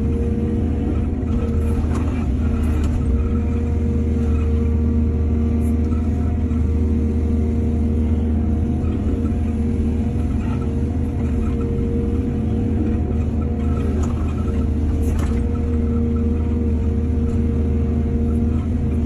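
Excavator's diesel engine running steadily, with a few short knocks scattered through, the loudest around two and fifteen seconds in.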